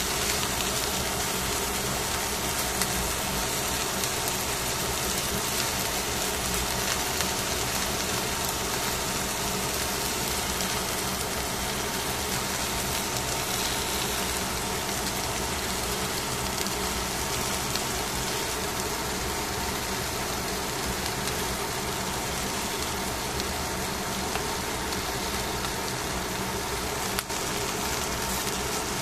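Fish fillets sizzling on aluminium foil over the heat, a steady hiss with a constant hum under it. A single sharp tap near the end.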